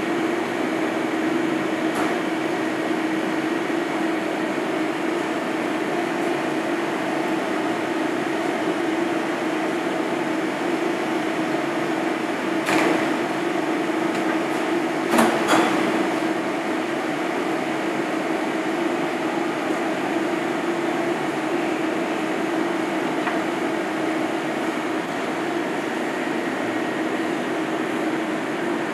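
Steady mechanical hum of kitchen equipment with a constant low drone, and a few light knocks and clatters of utensils being handled on the work surface, the loudest about halfway through.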